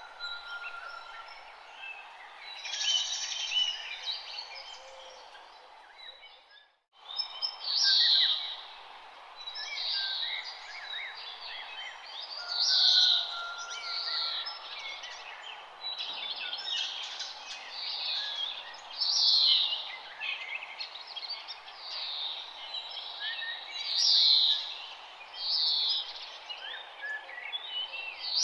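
Songbirds chirping and calling, short bright calls repeating every second or two over a steady background hiss of outdoor ambience. The sound cuts out abruptly for a moment about seven seconds in, like a splice.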